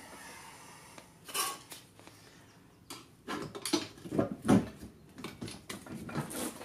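Irregular metallic clinks and knocks of a wrench and bolt at a golf cart's rear leaf spring shackle as the shackle bolt is worked loose and pulled out. The loudest knock comes about four and a half seconds in.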